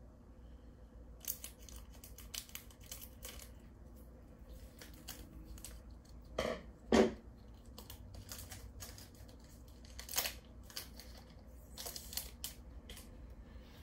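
Hands handling Pokémon trading-card booster packs and cards: a run of crisp clicks and rustles, with two louder knocks about six and a half and seven seconds in and another near ten seconds.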